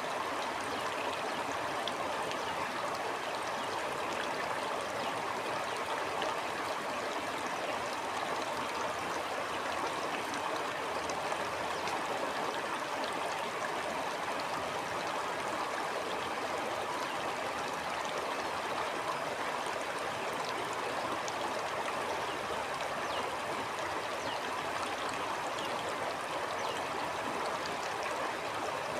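Stream flowing steadily, the water babbling and trickling in a constant, even rush.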